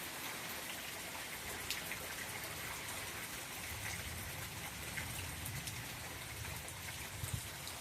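Steady rain falling, with scattered sharp patters of individual drops and a low rumble that comes in about halfway through.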